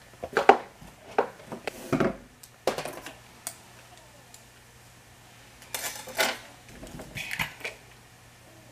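Plastic hair tools and bottles being picked up and set down: scattered light clicks and knocks, with a louder clatter about six seconds in and a few more clicks just after.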